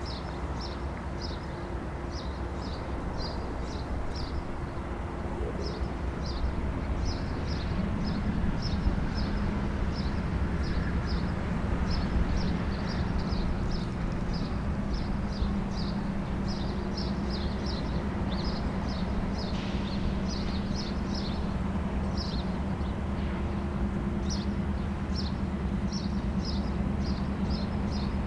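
Diesel locomotives of a CN light-engine move running and creeping forward, a steady low engine drone whose note strengthens about eight seconds in as the throttle opens. Short high chirps repeat two or three times a second over it.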